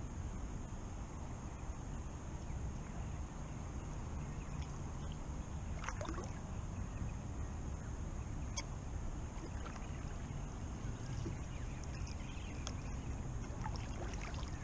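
Quiet outdoor creek ambience: a steady low rumble under a constant high-pitched hiss, with a few short chirps and clicks scattered through, about 6 s in, near 8 s, and twice near the end.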